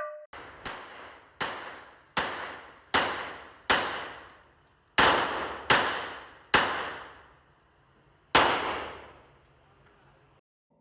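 Nine single gunshots from a handgun, each followed by a ringing echo that dies away. Five come about three-quarters of a second apart, then after a short pause three more, and a last shot follows after a longer gap.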